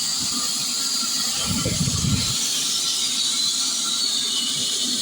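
Heavy wood-cutting machine running with a steady high hiss, with a short low rumble about one and a half seconds in.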